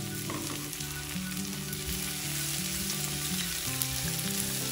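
Chopped green beans frying in hot oil in a nonstick pan, a steady sizzle, stirred with a spatula near the end.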